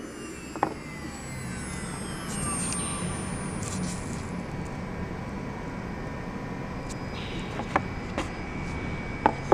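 Mini 3030 desktop CNC router running: a steady hum with thin whining tones that slide in pitch as the axes move, and a few faint knocks.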